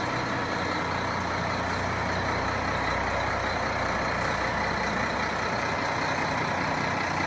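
Fire truck driving slowly past, its engine running with a steady, even noise.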